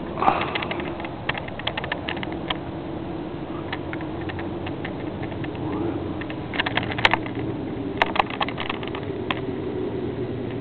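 Handling noise on a handheld digital camera: irregular light clicks and taps, bunched about a second in and again past the middle, over a steady low hum.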